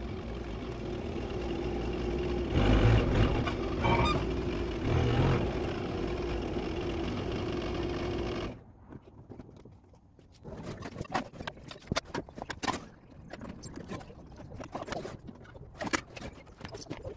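A vehicle running, a steady rumble with a held hum and two louder swells, for about eight seconds. It then cuts off suddenly, giving way to quieter, irregular sharp clicks and knocks of hand work on the car.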